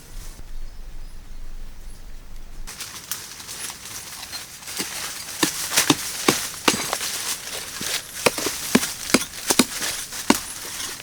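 Rustling, then from about three seconds in a run of sharp, irregular knocks and snaps that grow more frequent, as in hand work with wood and plant material.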